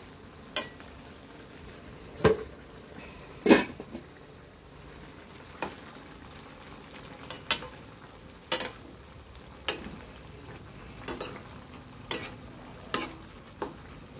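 Metal ladle stirring vegetables in a wok, scraping and knocking against the pan about a dozen times at uneven intervals, over a low steady sizzle from the simmering pan.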